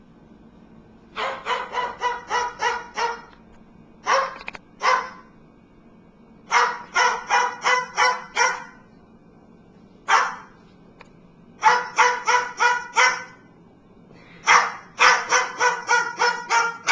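A dog barking in quick runs of about five to seven short, high barks, with pauses of a second or two between the runs.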